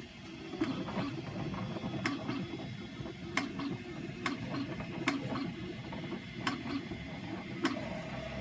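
3D printer running: a steady mechanical hum from its moving parts, with sharp clicks at irregular intervals about once a second.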